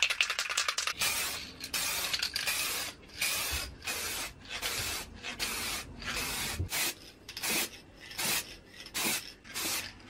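Aerosol spray can hissing in repeated bursts as plastic primer and then black metallic paint are sprayed onto plastic car door trim panels. The bursts are shorter and come quicker toward the end.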